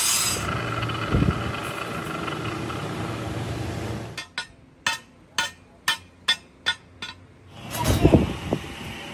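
Electric angle grinder with an abrasive cut-off disc cutting steel plate: a steady whine over harsh grinding noise that stops about four seconds in. After it comes a run of sharp ticks about two a second, then a louder noisy burst near the end.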